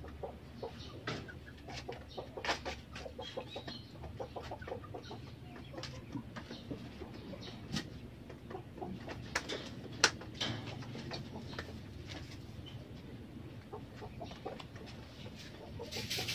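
Faint animal calls and scattered light knocks and clicks, with one sharper click about ten seconds in.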